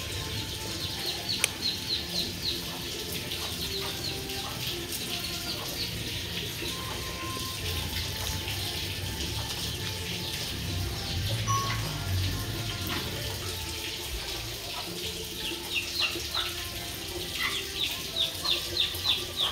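Young chicks peeping in runs of quick, high, falling chirps, about four a second, near the start and again near the end, with hens clucking low among them over a steady background hiss.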